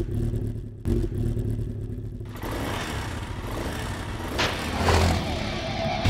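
Motorcycle engine sound effect that starts abruptly and revs, with a second surge under a second in, then a harsher, noisier run from about two seconds in.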